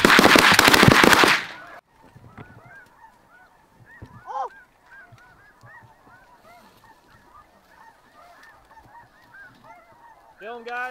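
A rapid volley of shotgun blasts from several hunters firing together in the first second or two. Then a flock of snow geese calling over the decoy spread: many high, overlapping honks, with a louder honk about four seconds in and another near the end.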